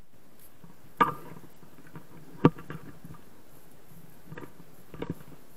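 Handling noise from a small action camera being moved and fitted: two sharp knocks, then a few lighter clicks near the end, over a low steady hiss.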